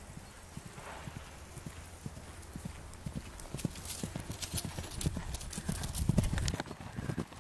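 Hoofbeats of a pony cantering on grass, a quick run of soft thuds that grows louder as it approaches and is loudest about six seconds in.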